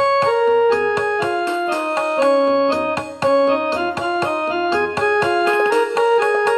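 Piano music playing Raag Bhupali, the pentatonic Hindustani raga: a quick melody of single struck notes over a held low note.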